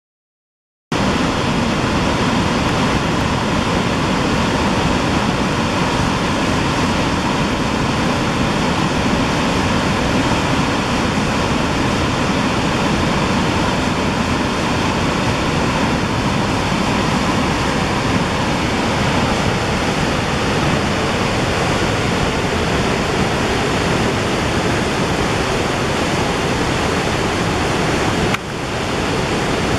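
A large, high waterfall rushing: a loud, steady wash of falling water that starts about a second in, after a moment of silence. The level drops briefly near the end and then comes back.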